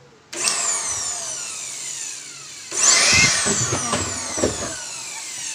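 INGCO AB4018 400 W electric air blower switched on, its motor whining up sharply in pitch and then sliding down; about two and a half seconds in it is triggered again, louder.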